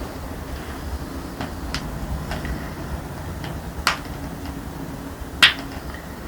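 Joints cracking during a chiropractic adjustment: a few small pops, a sharper crack near the middle, and one loud crack about five and a half seconds in.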